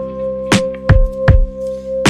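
Background music on acoustic guitar: plucked notes ring out three times over a held tone.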